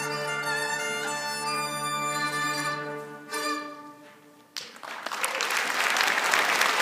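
Music for the dance ends on a long held chord with one short final note, then audience applause starts about four and a half seconds in and builds.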